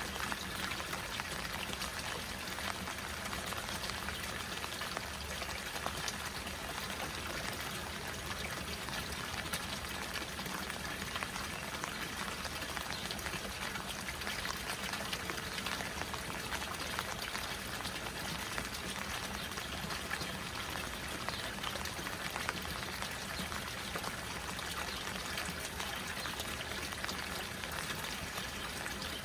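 Rain falling on a koi pond, heard as a steady hiss of many small drops hitting the water, with water pouring into the pond from an inlet spout.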